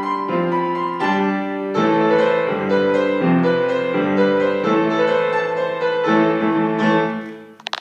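Upright piano playing a solo piece in chords struck every half second or so, the final chord dying away near the end. A few sharp clicks follow.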